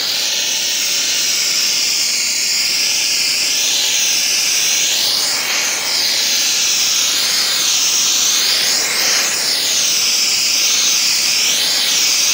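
Pressure washer's high-pressure water jet blasting concrete: a loud, steady hiss whose tone swings up and down every second or so as the nozzle is swept back and forth across the slab.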